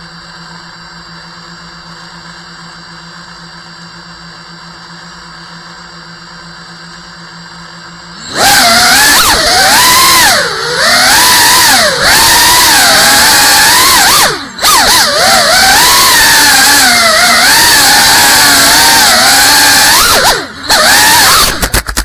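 Brushless motors and ducted propellers of a GEPRC Cinelog 35 cinewhoop drone, heard from its onboard camera. They spin steadily at idle with a constant whine while it sits on the floor. About eight seconds in they throttle up to a loud whine that rises and falls in pitch with the throttle in flight, dropping out briefly twice in the second half.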